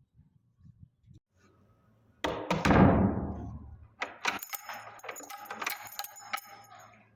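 A loud knock about two seconds in that dies away, then rapid metallic clicking and jingling from door lock and handle hardware being worked.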